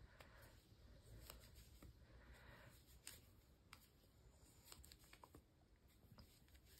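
Very faint, irregular clicks and rustling of wooden circular knitting needles and wool yarn as stitches are worked, barely above silence.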